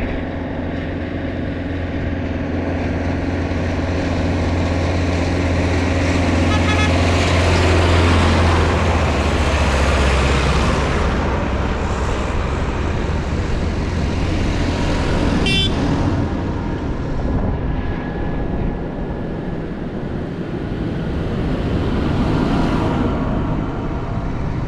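Diesel farm tractors driving past one after another, engines running, with a loud low engine hum that fades out after about ten seconds. A short horn toot sounds about fifteen seconds in.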